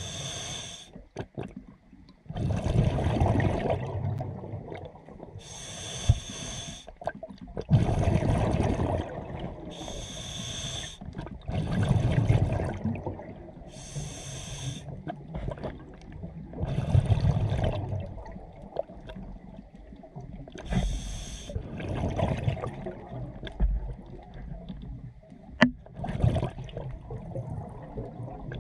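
A scuba diver's regulator breathing underwater, heard through the camera housing. A hissing inhalation through the demand valve alternates every four seconds or so with a loud, rumbling gush of exhaled bubbles.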